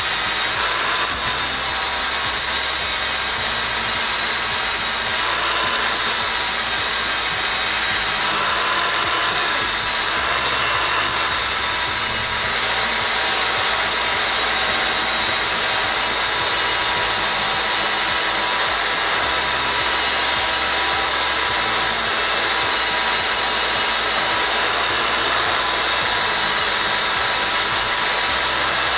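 Angle grinder with a flap disc grinding the thread off a steel M8 bolt: a steady high whine over a continuous grinding rasp, a little louder from about twelve seconds in.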